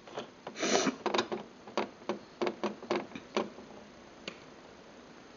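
A quick, irregular run of about a dozen light clicks, then one more click a second later: someone clicking and tapping at a computer while browsing.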